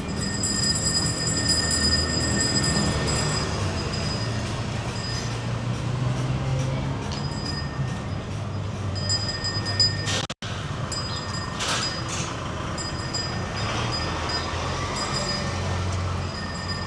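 Street sound dominated by a low, steady vehicle rumble, with a few thin high-pitched tones held over it. There is a short louder moment about ten seconds in, followed by a split-second dropout.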